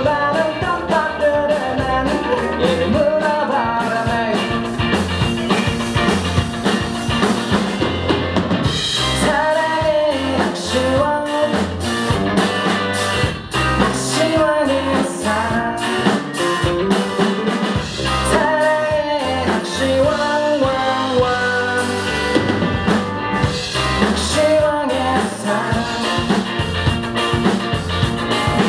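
Rock band playing live: electric guitars and a drum kit, with a man singing the lead vocal in phrases that come and go.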